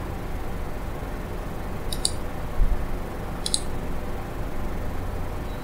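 Two computer mouse clicks, each a quick press-and-release, about a second and a half apart, with a low thump between them, over a steady background hum.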